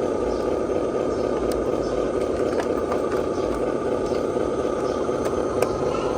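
Radio-controlled model trucks' electric motors and gearboxes running with a steady whine, with a couple of light clicks.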